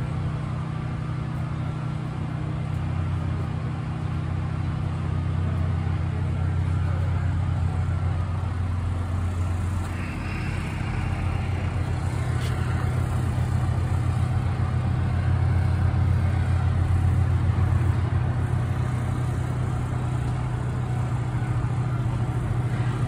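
Steady low engine hum from motor vehicles, unbroken throughout.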